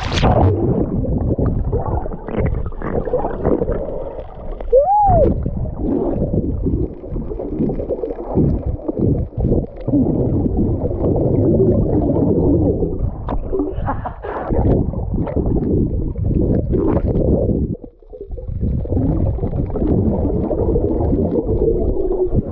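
Muffled water sound picked up by a waterproof action camera in the sea while snorkelling: continuous sloshing and gurgling, dull and low, with a brief rising-and-falling tone about five seconds in.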